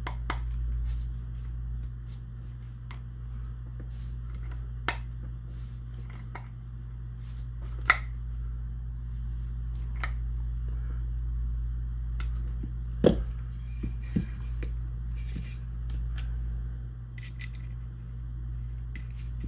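Scattered light metallic clicks and taps from small shotgun parts and screws being handled and fitted during reassembly, two of them sharper, about 8 and 13 seconds in. A steady low hum runs underneath.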